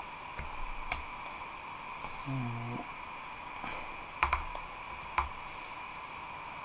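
Computer keyboard keystrokes: a handful of separate key taps while typing code.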